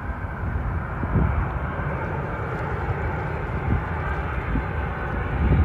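Landing airliner's engines on final approach, a steady rush that grows slowly louder as the plane comes closer, with low gusts of wind on the microphone.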